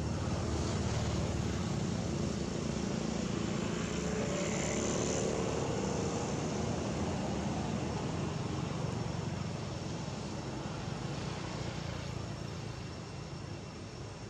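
A steady engine drone, loudest in the first half and slowly fading away toward the end.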